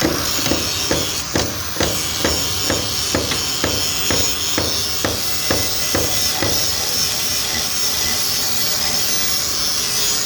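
Hammer strikes on metal, about two a second, stopping about seven seconds in, over the steady high whine of a grinder.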